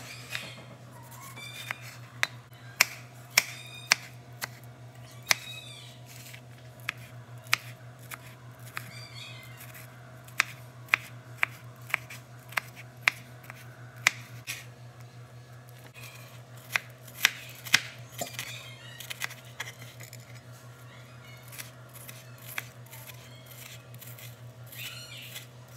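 Chef's knife chopping through tomato and onion onto a plastic cutting board: irregular sharp knocks, coming in clusters with pauses between them, over a steady low hum.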